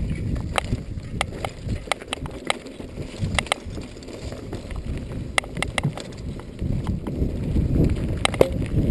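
Norco Storm hardtail mountain bike descending dry dirt singletrack: a low rumble of its 26x2.5 Continental Mountain King tyres rolling over the ground, with frequent irregular sharp clicks and clatters from the bike bouncing over the rough trail.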